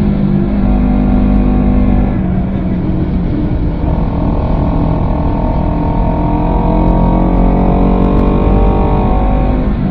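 Honda CBR250RR parallel-twin engine running loud through a WR'S SS-OVAL titanium slip-on silencer. The exhaust note dips about two seconds in, then rises steadily in pitch over several seconds as the engine revs climb.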